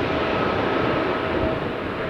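Jet engines of a twin-engine widebody airliner at takeoff thrust, a steady roar with a faint whine in it, slowly fading as the aircraft climbs away.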